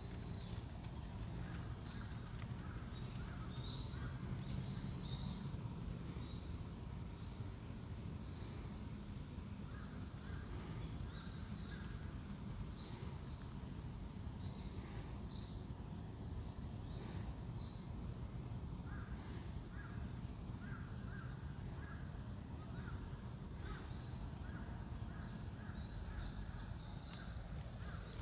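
Outdoor ambience: a steady high-pitched insect drone, with short bird calls repeating every second or two, over a low rumble.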